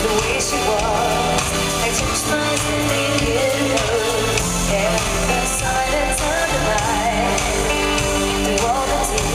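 Live pop song in an arena: a woman singing held, wavering notes over sustained synth chords, recorded from within the audience.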